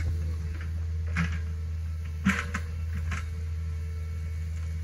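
Hitachi ZX48U mini excavator's diesel engine running with a steady low drone while its bucket digs through the brush-choked ditch, with a few sharp cracks and knocks about one, two and three seconds in.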